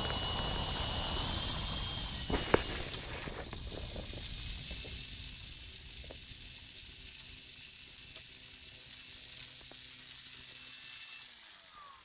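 Multiplex FunCub electric RC plane taxiing over grass: a thin, high motor whine that steps up in pitch about a second in and drops about 2.5 s in, then goes on fainter and stops shortly before the end, over a hiss that slowly fades. A sharp click about 2.5 s in.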